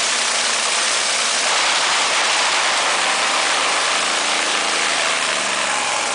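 Top fuel dragster's supercharged, nitromethane-burning V8 idling in a warm-up run, a loud, harsh, steady noise.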